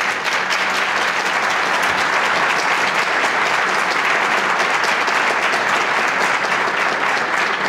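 Large seated audience applauding steadily: a dense, sustained ovation of many hands clapping.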